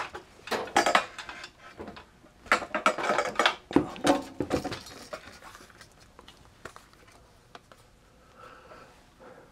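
Handling noise as a camera is picked up and moved across a workbench: a run of knocks, clicks and rattles over the first five seconds, then only faint scattered ticks.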